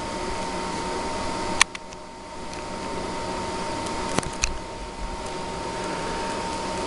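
Work on the end of a Cat 5 cable: a sharp click about a second and a half in and two more close together around four seconds in, over a steady hiss with a faint constant whine.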